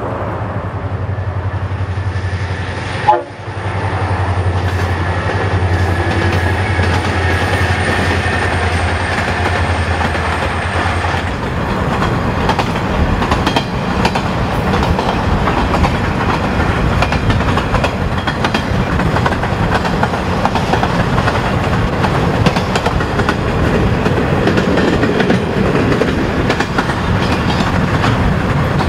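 Diesel-hauled container freight train on the move: a steady low locomotive rumble for the first ten seconds or so, with a brief loud bump about three seconds in. From about eleven seconds the rumble gives way to wagons rolling and clattering on the rails, heard from inside a car driving alongside, mixed with road and wind noise.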